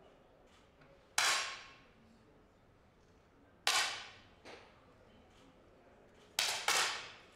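10-metre match air pistols firing on the range: four sharp shots, the last two close together near the end, each with a short ringing tail, plus a fainter shot in between.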